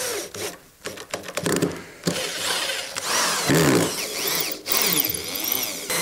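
Electric drill driving wood screws through the hive's base legs into the box, in several short runs with brief stops, its motor pitch rising and falling as the trigger is squeezed and eased. It is an old drill that the owner calls not the healthiest sounding, burnt out once before.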